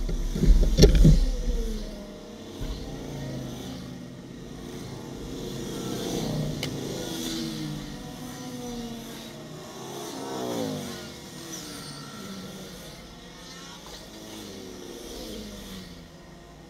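A file of motorcycles riding past one after another, each engine sliding in pitch as it goes by. The loudest pass is about a second in, and quieter bikes follow.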